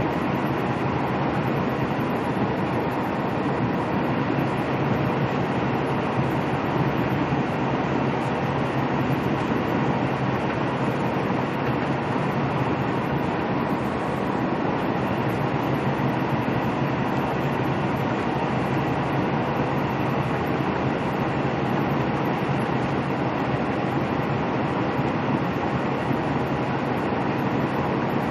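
Steady in-cab noise of a semi-truck cruising at highway speed: engine and tyre noise, with a few faint steady tones and no changes.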